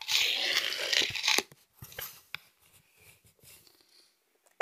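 Rustling and crinkling for about a second and a half, then a few light clicks and taps.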